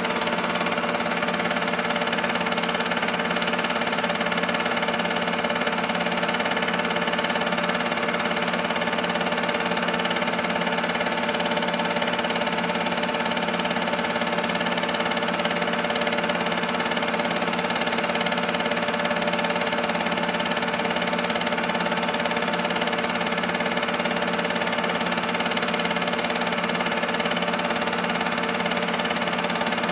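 Film-loop projector running steadily: an even mechanical whir with a constant hum, unchanging throughout.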